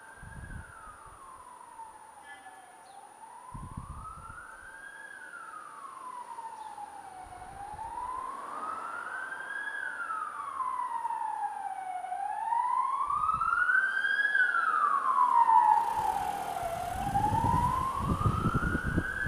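An emergency vehicle siren wailing in a slow rise and fall, about four sweeps, growing steadily louder. Over the last few seconds wind buffets the microphone as the scooter moves off.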